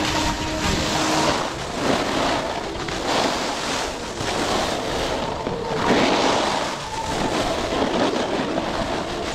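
Snowboard sliding down a slope of indoor machine-made snow: a scraping hiss over the snow that swells and eases every second or two, with wind on the microphone.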